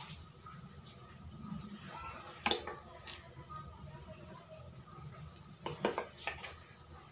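Lentil-batter fritters deep-frying in hot mustard oil in a kadai, a faint steady sizzle, with a few clinks of a spoon against the pan as more batter is dropped in, about 2.5 seconds in and again near 6 seconds.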